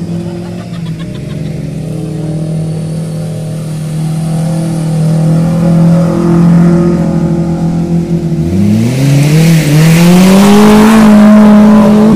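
Off-road SUV engine running steadily, then revving up sharply about eight seconds in, while the vehicle spins its wheels in mud doing donuts. A loud rushing hiss joins the revs near the end.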